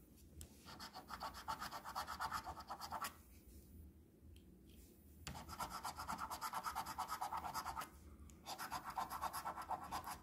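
A coin scraping the coating off a lottery scratch-off ticket in three runs of quick back-and-forth strokes, about eight a second, with short pauses between the runs.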